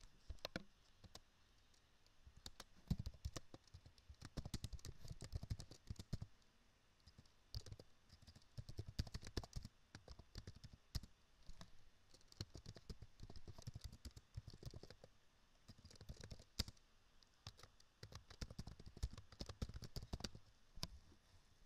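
Computer keyboard typing: runs of quick keystrokes with short pauses between them.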